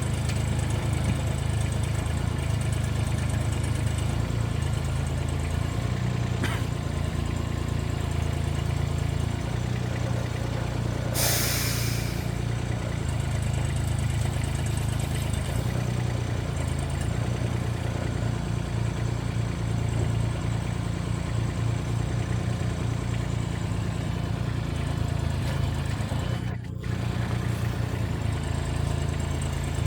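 Construction machine's engine running steadily, with a brief hiss about eleven seconds in.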